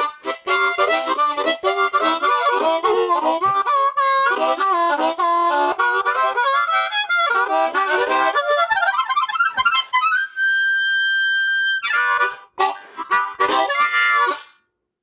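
Harmonica played solo: quick runs of notes and chords, then one long held note about ten seconds in, a few more quick notes, and it stops shortly before the end.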